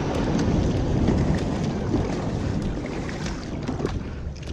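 Wind buffeting the camera microphone over the wash of sea water as a kayak is paddled, with small splashes and drips from the paddle blades.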